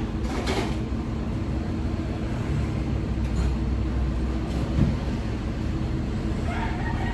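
Car engine idling steadily, with a single short knock about five seconds in.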